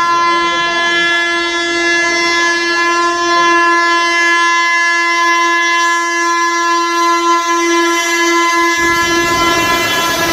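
Train horn sounding in one long, loud, unbroken blast at a steady pitch. About nine seconds in, the low rumble of the moving train joins it.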